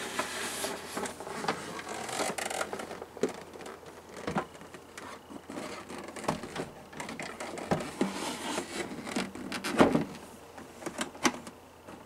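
Hard plastic parts of a Hunter 32500 evaporative humidifier being handled and fitted back together: irregular clicks, knocks and light rattles, the loudest knock about ten seconds in.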